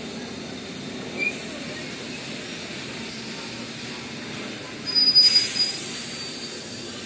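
Steel wheels of heritage passenger carriages rolling slowly past, a steady low rumble. A brief high squeal about a second in, and a louder high-pitched wheel squeal with a rush of hiss about five seconds in, lasting about a second.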